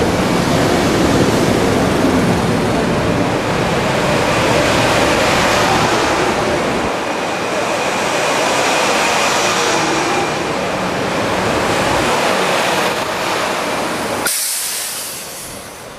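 Metro-North M2 electric multiple-unit train rolling past the platform as it pulls out, a steady rush and rumble of wheels and cars with a faint whine. About 14 s in it cuts abruptly to wind buffeting the microphone.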